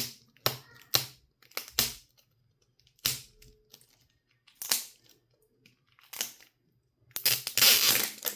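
Plastic toy packaging being crinkled and torn open by hand in a series of short rustling bursts, with a longer, louder tearing crinkle near the end.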